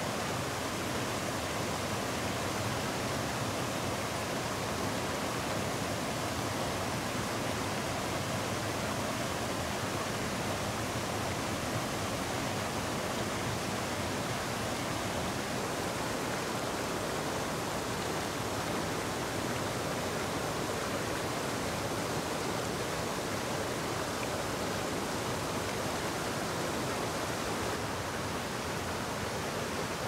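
Steady rush of water pouring over a low weir and running through a shallow, rocky river.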